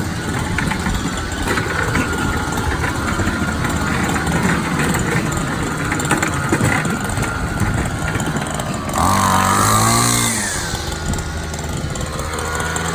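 Small two-stroke grass-cutter engine running steadily, revving up briefly about nine seconds in, then settling back.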